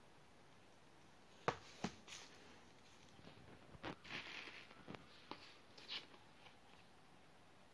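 Cardboard album packaging handled by hand: a scattering of soft taps and knocks, with a short rustle in the middle, as the album sleeve and case are shifted and set down.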